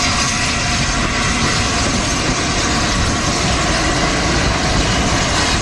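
Peppercorn A1 Pacific steam locomotive 60163 Tornado, a three-cylinder engine, passing close by with its train, making a loud, steady rush of noise.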